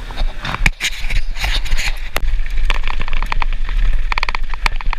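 Mountain bike riding a rough dirt trail: tyres on dirt and the bike rattling and knocking over bumps, with a quick run of ticking about four seconds in. Wind rumbles steadily on the GoPro's microphone.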